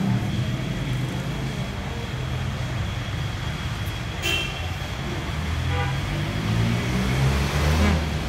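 Road traffic going by: steady engine rumble from passing vehicles, with a short horn toot about four seconds in and a louder vehicle passing near the end.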